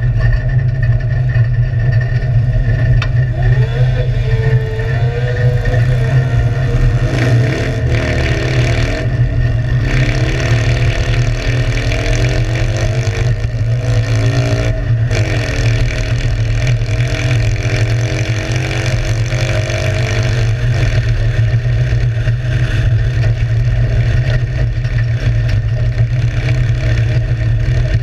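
Citroën 2CV cross car's air-cooled flat-twin engine, heard from inside the cockpit while driving hard, revving up and dropping back several times over a steady low rumble.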